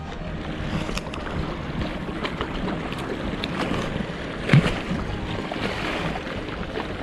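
Sea water washing against a rocky shore, with wind buffeting the microphone. Small handling clicks run throughout, and one louder knock comes about four and a half seconds in.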